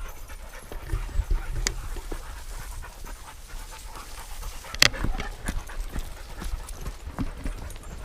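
A dog panting, with scattered small clicks and one sharp knock a little past halfway.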